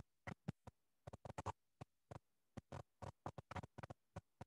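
Faint rustling and clicking of textbook pages being turned and handled, coming through video-call microphones as short, choppy snatches with dead silence between them, about several a second.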